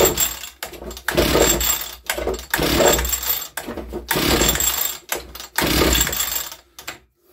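Spear and Jackson two-stroke petrol string trimmer being pull-started: about five pulls on the recoil starter cord, each a whirr of the engine turning over, without the engine catching. Its ignition switch is still off.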